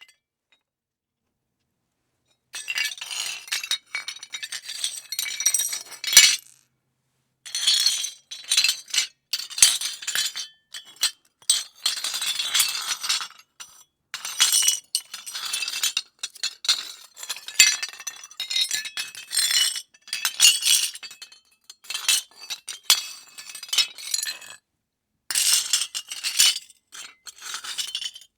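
Rubble being dragged: loose hard debris scraping and clinking together in irregular bursts, with short pauses between stretches, starting after a couple of seconds of silence.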